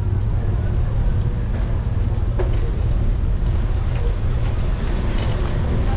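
Steady low rumble of a slow bicycle ride down a busy street, picked up by a GoPro, with a car just ahead and a few light clicks.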